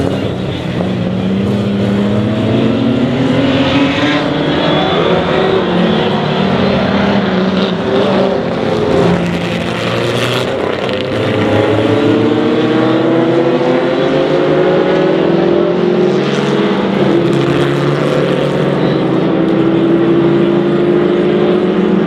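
Engines of several historic racing cars of the late 1950s and early 1960s running hard on a racetrack, their notes rising in pitch over and over as they accelerate through the gears, with more than one car heard at a time.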